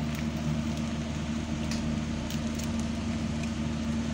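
A steady mechanical hum with a few faint scrapes from a hand-held grater as cheese is grated over the frying pan.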